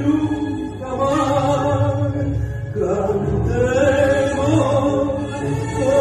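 Argentine tango music: a voice singing long, held phrases in Spanish over a low, steady accompaniment, with a brief break between phrases about three seconds in.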